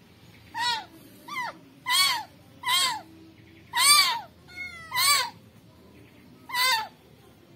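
Newborn kitten crying with a string of high, thin mews, about eight of them roughly a second apart, each rising and then falling in pitch, as it is rubbed dry with tissue.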